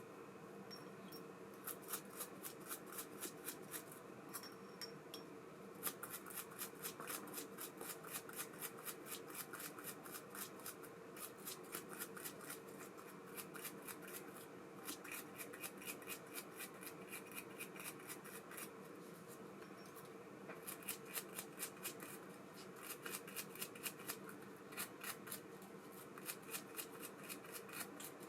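ABU Ambassadeur 5500C baitcasting reel being worked by hand: runs of quick, even metallic clicks lasting a few seconds each, stopping and starting again several times.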